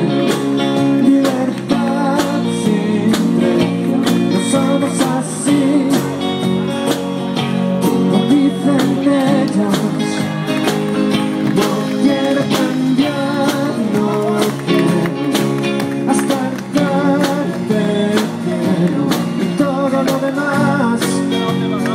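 Music: a song with guitar and a steady beat.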